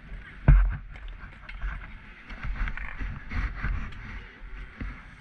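A homemade bicycle rolling along, with rattling and rumbling, and one sharp bang about half a second in.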